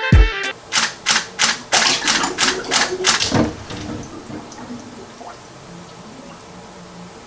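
Camera shutter firing in a rapid burst, about nine clicks at roughly three a second, framed by a low thud at the start and another just after the burst ends.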